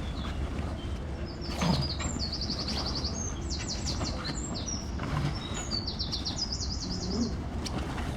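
A songbird singing several quick, high trilled phrases, each a rapid run of repeated notes. A brief thump comes about a second and a half in, over a steady low rumble.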